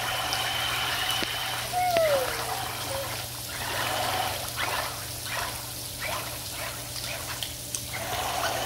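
Water splashing and churning as the Hot Wheels RC Terrain Twister's spinning treads paddle it across a swimming pool, rising and falling as it moves. A short falling tone comes about two seconds in.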